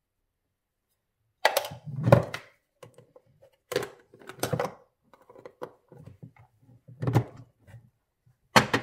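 A series of sharp knocks and thunks, about seven over several seconds starting about a second and a half in, as a plastic tub and scoop of bicarbonate of soda are handled and set down on a wooden table.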